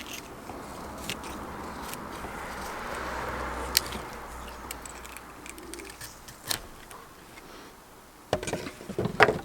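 Condor Terrasaur knife carving a green stick: a drawn-out scraping of the blade shaving wood that swells and fades, with scattered small clicks, then several sharp knocks near the end.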